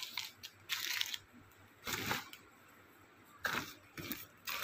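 Plastic grocery packets crinkling and rustling as they are handled, in several short bursts with a quieter spell in the middle.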